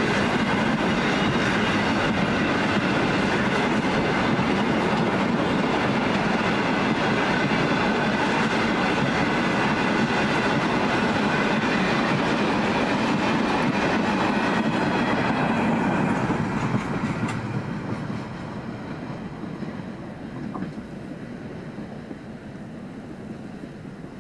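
Loaded container wagons of a freight train rolling past on the track: a steady rumble and clatter of wheels over the rails, with thin high ringing tones. About two-thirds of the way through, the last wagon passes and the sound drops away, fading as the train recedes.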